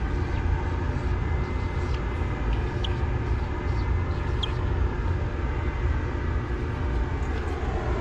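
Air-conditioning units running steadily: a low fan-and-compressor hum with faint steady tones above it, and a couple of light ticks midway.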